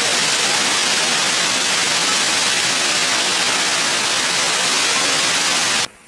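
Waterfall: a loud, steady rushing hiss of falling water that cuts off suddenly just before the end.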